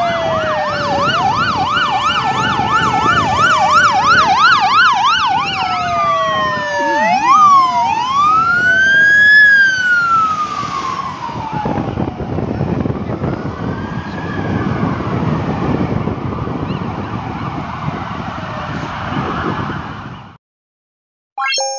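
Several police van sirens sounding at once, a fast yelp overlapping slower rising-and-falling wails, over engine and tyre noise. The sirens fade after about eleven seconds, leaving road noise that cuts off suddenly near the end.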